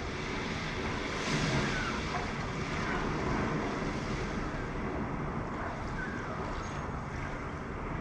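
Sea surf and wind sound effect from an animated film's soundtrack: a steady wash of waves, with a few faint short chirps over it.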